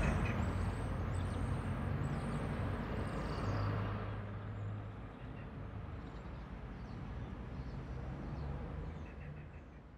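Outdoor city ambience of distant traffic, a steady hum with faint high chirps in the first few seconds, fading out at the end.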